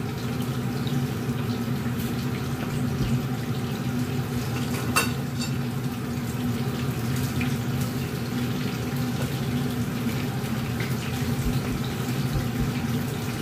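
Fish frying in a pan of hot oil, a steady bubbling sizzle over a constant low hum, with a single sharp click about five seconds in.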